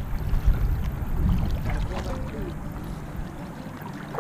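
Kayak paddling through shallow river water: paddle splashes and water lapping against the plastic hull, over a low rumble of wind on the microphone.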